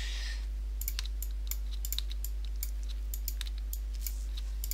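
Computer mouse and keyboard clicking as the GIMP heal tool is worked with Ctrl-click then click: a run of sharp, irregular clicks, about three to four a second, over a steady low hum.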